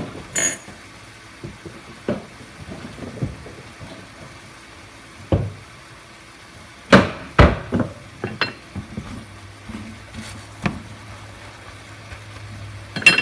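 Kitchen utensils and cookware knocking and clattering at a stovetop skillet, in scattered sharp knocks with two loud ones close together about seven seconds in. A low steady hum starts about nine seconds in.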